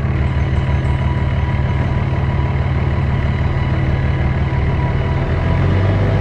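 A vehicle engine running steadily with a deep, low hum; its pitch shifts slightly about five and a half seconds in.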